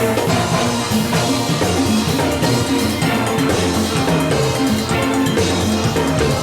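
Steel orchestra playing live: many steel pans sounding the melody and chords over a drum kit and percussion keeping a steady beat.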